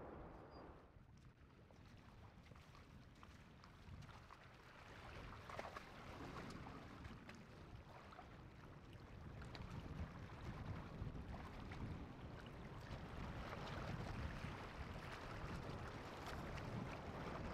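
Faint wind on the microphone with a low rumble that slowly grows louder.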